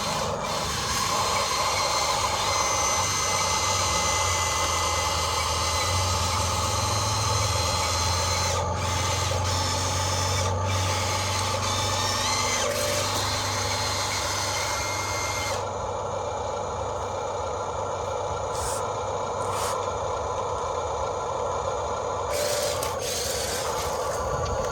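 Small electric motors of RC excavators whining and humming steadily, like a power tool, with a brief rise in pitch about halfway through. The higher part of the sound drops away about two-thirds of the way in.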